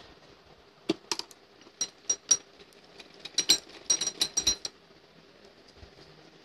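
A quick, irregular run of small sharp clicks and clinks, some with a faint high ring, as the fabric strip is handled and set in place on a sewing machine; it stops after about four seconds.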